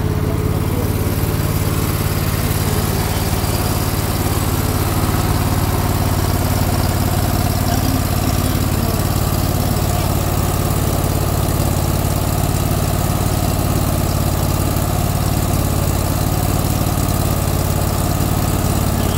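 Hustler mower's engine idling steadily.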